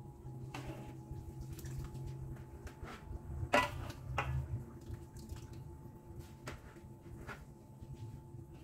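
Metal ladle clinking and scraping against an aluminium wok as braised chicken pieces are lifted out of the sauce. There is a louder clink about three and a half seconds in, with light dripping and scattered small knocks over a low steady hum.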